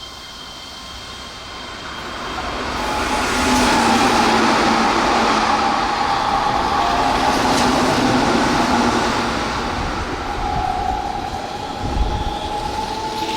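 Keihan electric train running past on the tracks, its noise building to a peak about four seconds in, with a steady high whine over the rumble and a single thump near the end.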